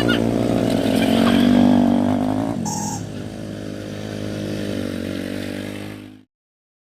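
A small engine running steadily. It drops in pitch and level about two and a half seconds in, then cuts off abruptly about six seconds in.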